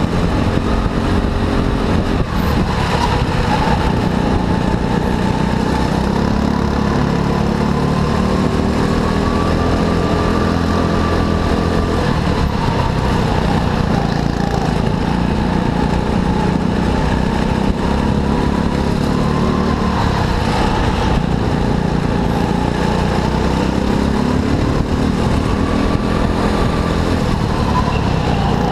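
Go-kart engine running continuously, its pitch slowly rising and falling as the kart speeds up and slows through the corners.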